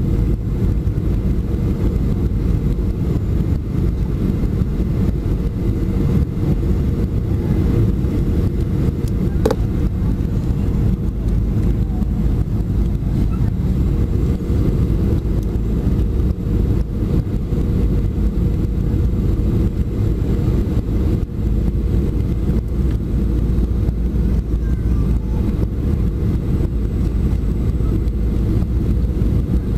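Steady cabin noise of a Boeing 737-400 on approach for landing, heard from a window seat beside its CFM56-3 turbofan engine: a deep, even rumble of engine and rushing air with a faint steady hum over it. One short click about nine seconds in.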